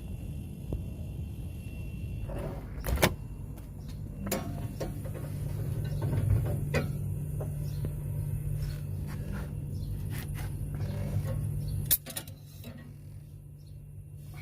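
Mini chiller's refrigeration compressor running with a steady low hum, freshly recharged with R134a and running normally. Several sharp knocks and clacks of the unit's cover and tools being handled, the loudest about three seconds in and again near the end.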